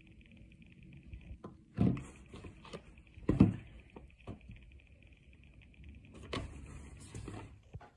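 Rolls of self-adhesive shelf liner in clear plastic sleeves being handled on a table. There are two louder knocks, about two and three and a half seconds in, and several lighter taps. Near the end comes a stretch of plastic sleeve crinkling, all over a faint steady high hum.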